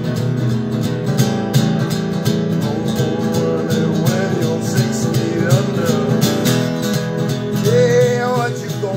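Sunburst archtop guitar strummed in a steady rhythm, with a wavering wordless vocal line over the chords in places.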